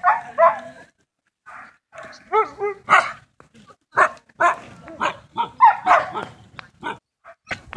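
Huskies barking and yelping: a fast run of short barks and yelps, some bending up and down in pitch, after a brief quiet moment about a second in.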